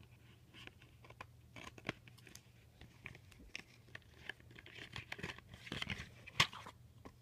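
Small cardboard cosmetics box and its packaging being opened and handled: faint irregular crinkling, tearing and clicking that gets busier in the second half, with one louder click about six seconds in.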